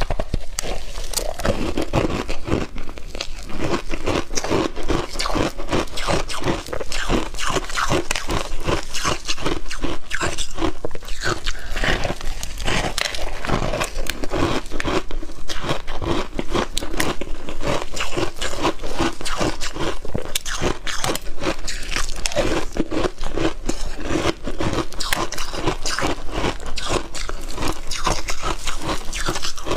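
Close-miked crunching of a frozen ice block being bitten and chewed in big bites: a continuous run of sharp cracks and crackles as the ice breaks between the teeth.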